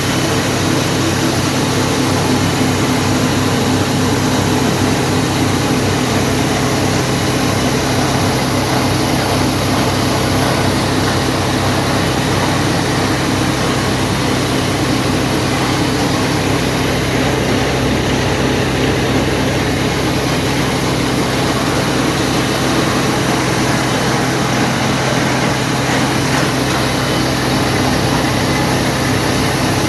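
Wheat grain grading and cleaning machine running with a loud, steady mechanical drone and hum that does not change.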